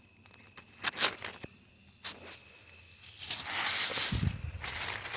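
A cricket chirping in short, regular high chirps about twice a second, over rustling and snapping of plants being pulled up by hand, which grows louder from about three seconds in with a dull thud near four seconds.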